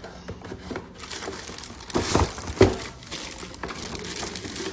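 Packaging being handled: crinkling and rustling, with two louder knocks about two and two and a half seconds in.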